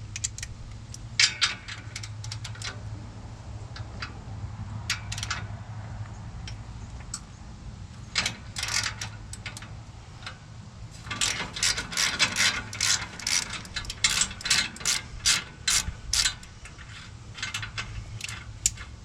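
Hand ratchet wrench clicking in runs as bolts on a tractor loader mounting bracket are turned. The clicks are scattered at first and come fast and close together in the second half, over a low steady hum.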